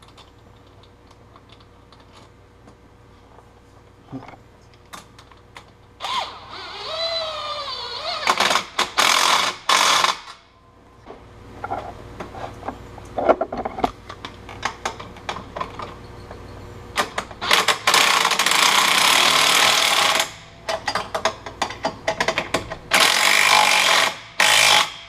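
Ratchet wrench tightening a turbo V-band clamp, in three long bursts of rapid clicking after a quiet start, with a short wavering whine just before the first burst.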